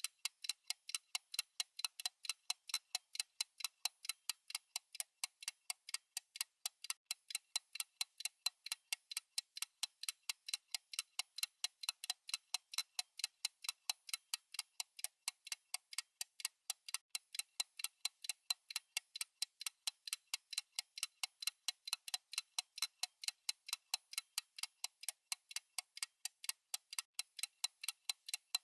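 Fast ticking of a countdown timer's clock-tick sound, about four sharp, even ticks a second.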